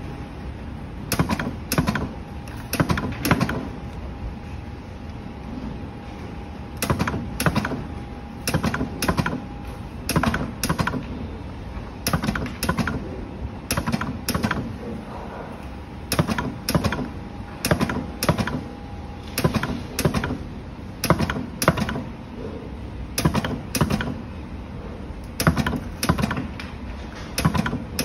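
Automatic battery spot welder working down a row of 18650 cells: its pneumatic twin-electrode head clacks down and fires in quick clusters of sharp snaps every second or two, over a faint steady tone that comes and goes.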